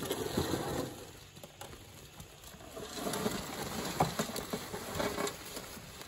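Dried ear corn and loose kernels rattling and clattering as they are handled by hand, with scattered sharp knocks.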